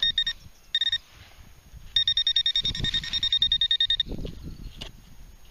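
Garrett Pro Pointer pinpointer beeping as it is worked over a buried target: a couple of short beeps, then about two seconds in a fast pulsing beep at roughly nine pulses a second, the pulse rate showing the probe is close to the find.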